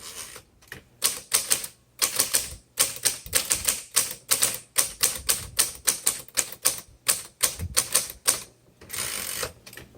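Keys of a 1958 Royal Futura 800 manual typewriter being typed in a quick, uneven run of sharp clacks, about three to four a second, followed by a short rasp about nine seconds in.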